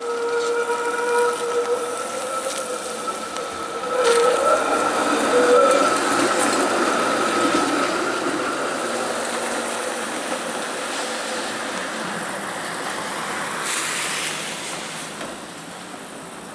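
TTC CLRV streetcar rounding the tight curve of a turning loop on wet track, its wheels squealing in a steady high-pitched whine over the rumble of the car. The squeal swells and wavers about four seconds in, then fades as the car moves off.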